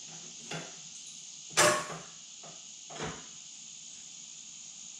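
Three short knocks and clunks from hand work on a VW bus engine bay, the middle one loudest, over a steady high hiss.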